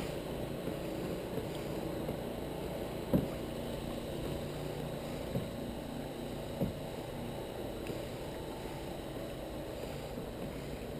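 Kayak moving across still floodwater: a steady low rushing noise with a few soft knocks, the loudest about three seconds in.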